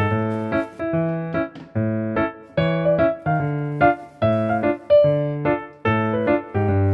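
Background music on piano or keyboard: a melody over a bass line, its notes changing about twice a second.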